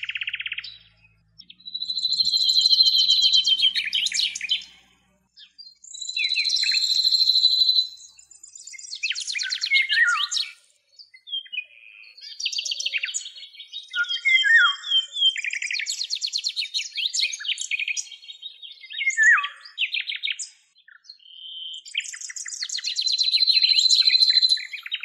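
A bird singing in varied phrases a second or two long: rapid trills held near one high pitch, mixed with chirps and short falling whistles, with brief pauses between phrases.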